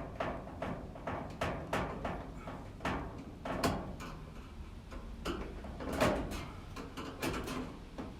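Irregular clicks, taps and scrapes of hand work with a screwdriver on metal appliance parts, the loudest knocks a little past halfway through and about three quarters of the way in.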